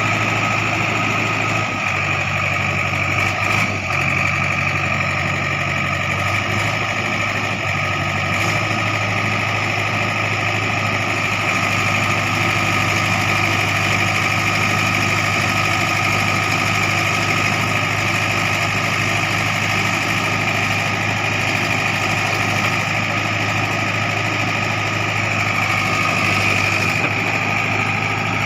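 Heavy machine's diesel engine running steadily, with a small change in its low note a few seconds in.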